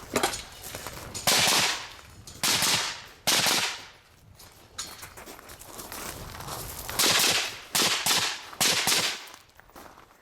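Rifle shots fired in two strings with a pause of about three seconds between them, each shot trailing off in a long echo.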